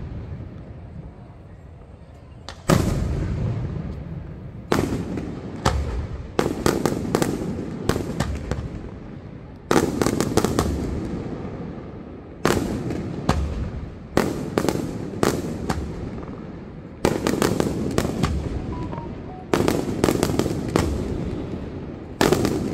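Aerial firework shells bursting in a fast, irregular run of loud bangs, each trailing an echo that rolls away. The first couple of seconds hold only the fading echo of an earlier burst before the bangs begin, sometimes several within a second.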